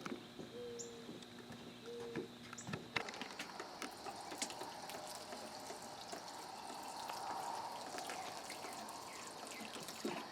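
Water poured onto a planter of petunias as they are watered: a faint, steady splashing trickle that starts about three seconds in.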